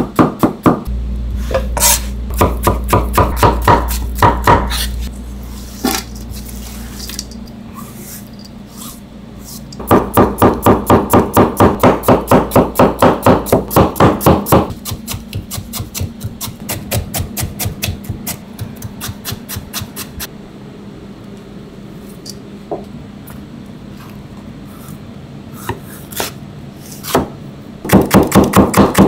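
A chef's knife slicing onion, carrot and green pepper thin on a plastic cutting board. The blade knocks the board in a fast, even rhythm of about five strokes a second. The strokes come in loud runs with softer stretches of tapping between them.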